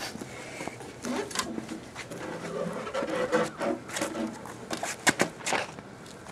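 Snow shovel scraping and knocking in packed snow: a run of irregular scrapes, with a cluster of sharp knocks about five seconds in.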